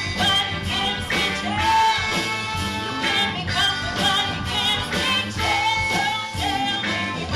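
A band playing an upbeat song with singing over a steady beat.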